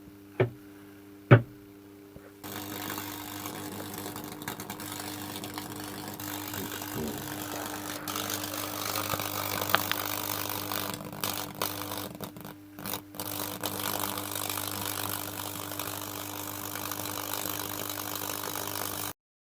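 Two sharp clicks, then a microwave-oven transformer switched on at over 2000 volts: a steady electrical hum under a continuous crackling, sizzling hiss as the high-voltage discharge burns across the soda-soaked wooden board. It cuts off abruptly near the end.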